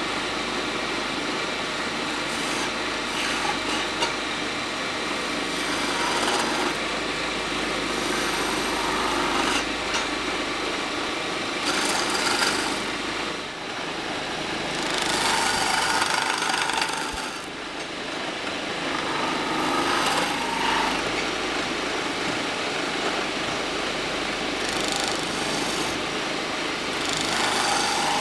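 Wood lathe running while a hand chisel cuts into the spinning wooden blank: a steady scraping hiss that swells with each of several cuts.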